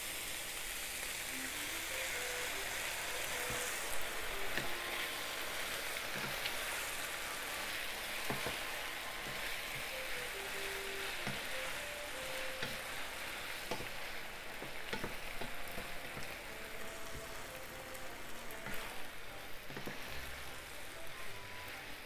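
Chicken, bean sprouts and green peppers sizzling steadily in a frying pan still hot after the burner is switched off, as the seasoning sauce goes in and a wooden spatula stirs with light scraping clicks. Faint background music notes play over it.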